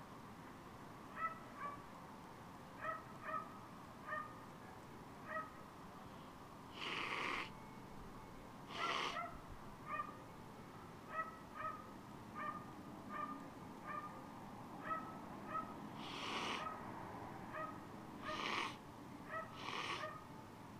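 Five sharp sniffs of menthol nasal snuff being snorted up the nostrils: two about a third of the way in and three more near the end. Behind them a bird repeats a short, high chirp roughly once a second.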